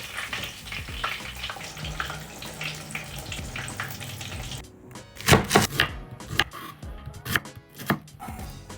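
Food being cut or chopped with a knife on a board. A run of fine crisp crackles and light ticks comes first, then several sharp, louder knocks starting about five seconds in.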